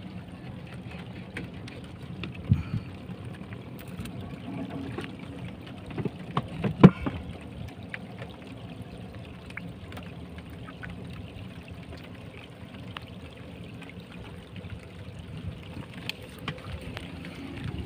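Scattered clicks and knocks of hermit crabs and their shells being handled over a plastic tub and a wooden boat deck, the loudest knock a little before the middle, over a steady background wash of water.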